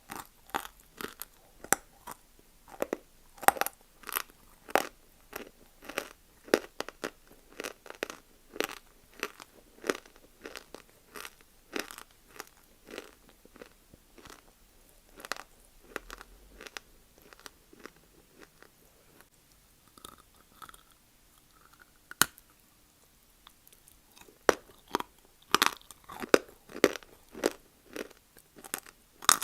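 A person chewing crunchy lumps of multani mitti (Fuller's earth clay): crisp crunches at about two a second, pausing about two-thirds of the way through with a single sharp click, then resuming louder.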